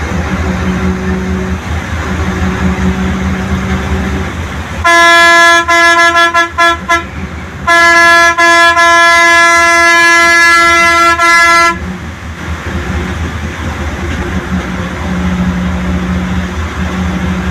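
Bus horn blowing over the steady drone of the bus engine: a blast about five seconds in, a quick run of short toots, then a long blast of about four seconds that cuts off near the twelve-second mark. The horn is by far the loudest sound.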